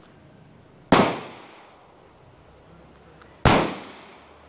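Two gunshots at the firing range, about two and a half seconds apart, each sharp crack dying away in a short echo.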